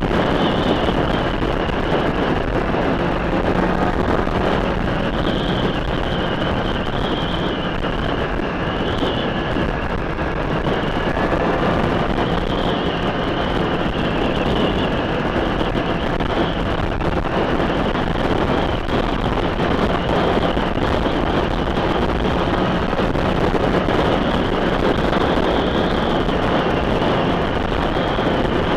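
Motorcycle riding at a steady speed: wind rushing over the microphone, with the engine of a Kawasaki ZX-6R inline-four sport bike running steadily under it.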